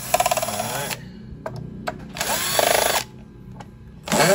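Cordless drill-driver backing the stainless-steel screws out of a power supply's sheet-metal cover, in three short bursts: one at the start, one about two seconds in and one beginning near the end. The motor's whine rises in pitch as each burst starts, and small metallic clicks fall between the bursts.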